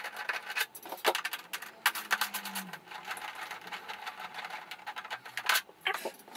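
Fast-forwarded workshop sounds: a quick, busy run of clicks, rattles and knocks from hand tools and plastic parts as the windscreen is unscrewed from the motorcycle, with a louder knock a little before two seconds in and again near the end.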